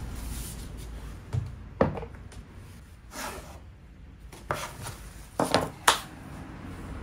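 Hand work on a wooden tabletop: a short scraping rub about three seconds in, and several sharp knocks of tool or wood against wood, three of them close together near the end.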